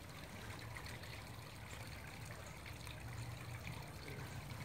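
Faint, steady rushing background noise with a low hum underneath and no distinct event.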